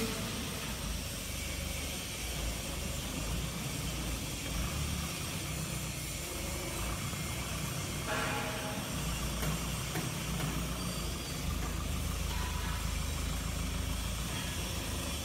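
A vehicle engine running steadily at low speed, a low rumble with hiss over it. About eight seconds in there is a short, higher-pitched squeak.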